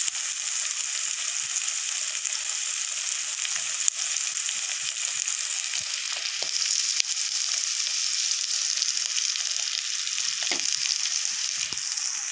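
Masala paste sizzling in oil in a steel kadai, a steady frying hiss; the masala is fully fried and the oil is separating out. Two sharp clicks cut through it, about four and seven seconds in.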